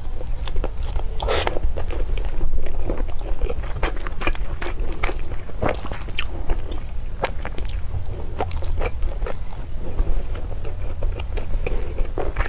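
Close-miked eating: irregular biting and chewing with many short, sharp crunchy clicks, over a steady low hum.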